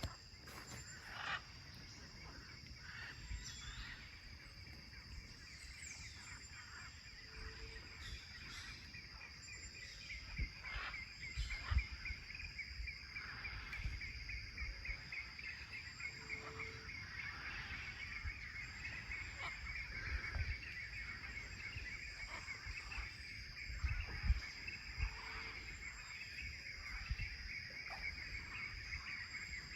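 Outdoor nature ambience: birds and other animals calling against a steady high hum, with a fast pulsing trill that grows stronger about twelve seconds in and scattered low bumps.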